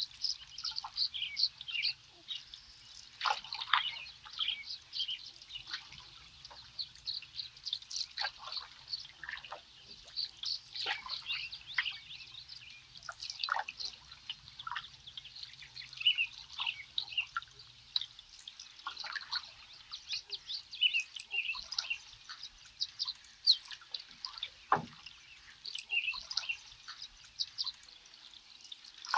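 A chorus of small birds chirping and singing, with water dripping and trickling off a canoe paddle.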